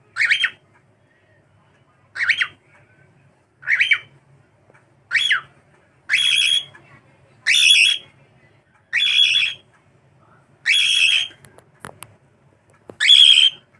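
Cockatiel calling over and over: nine loud, shrill whistled calls about a second and a half apart, the first few short and rising, the later ones longer. Two sharp clicks come near the end.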